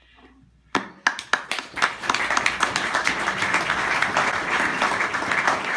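Audience applause: a few scattered claps about a second in, swelling quickly into steady clapping from many hands.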